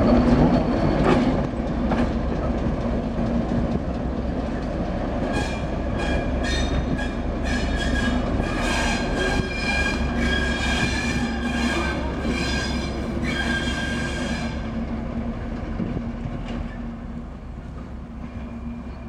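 ÖBB class 2050 diesel-electric locomotive running past and pulling away, its diesel engine giving a steady low hum that is loudest at first and slowly fades as it recedes. From about five seconds in, the wheels squeal on the rails in a run of high, repeated squeals that stop about ten seconds later.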